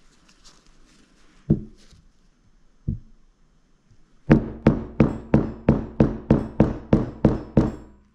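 Hammer striking a flathead screwdriver used as a drift to drive a 6902RS sealed bearing into a Bafang G60 hub motor. Two single taps, then a steady run of about a dozen strikes, roughly three a second, each with a short metallic ring.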